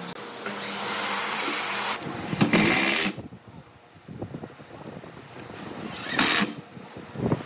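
Wooden boards scraping and knocking as they are slid into place on a wooden frame. After a quieter stretch of small clicks, a cordless drill gives a short burst about six seconds in, driving a screw into the pine.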